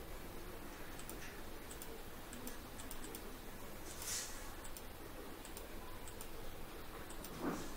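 Faint, irregular clicks of a computer mouse over a low steady hiss.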